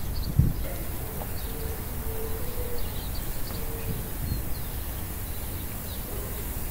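Outdoor ambience: a steady low rumble with irregular surges, over which faint, short, high bird chirps come and go.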